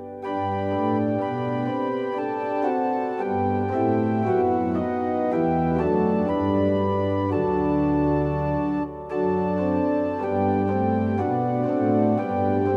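Electronic keyboard playing with an organ-like voice: held chords over a slowly moving bass line, with a short break between phrases about nine seconds in.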